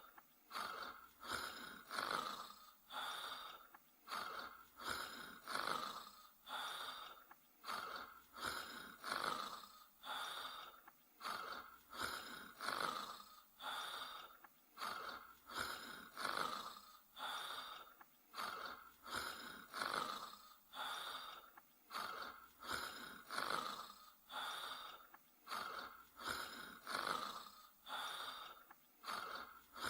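A sleeping dog snoring softly, in an even rhythm of breaths a little over one a second.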